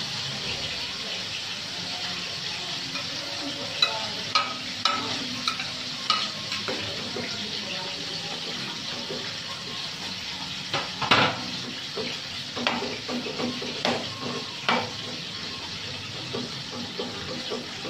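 Whole galunggong (round scad) shallow-frying in hot oil in a pan: a steady sizzle, with scattered sharp pops and crackles of spattering oil, more of them in the middle and latter part.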